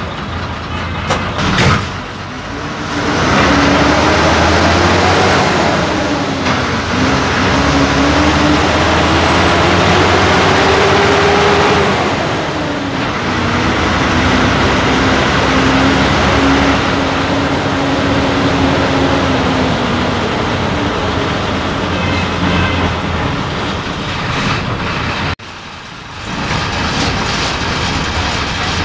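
Bus engine heard from inside the cab while the bus drives, with a constant rumble and rattle. Its pitch climbs for several seconds as it accelerates, drops at a gear change about twelve seconds in, then holds steady. The sound drops suddenly quieter near the end.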